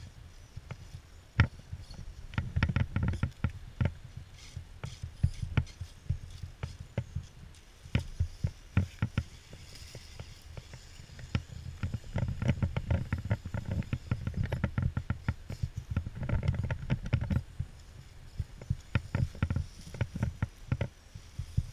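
Axial AX10 RC rock crawler climbing over stone slabs, its tyres and chassis knocking and scraping on the rock in many sharp clicks over a low rumble that swells and fades a few times.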